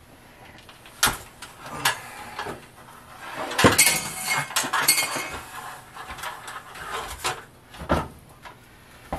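Metal hand tools clinking and knocking as they are handled at the top of a stepladder: scattered sharp knocks, with a busy clatter around four seconds in and another knock near the end.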